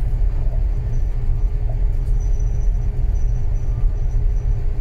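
Steady low rumble aboard a container ship during undocking, with a faint steady hum above it.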